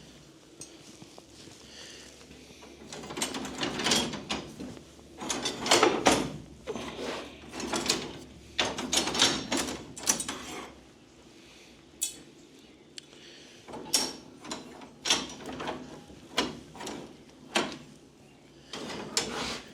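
Blacksmith's forged steel tongs and tools clanking and scraping against one another as they are handled, in irregular clinks and knocks. In the second half they turn into a run of sharper single clicks.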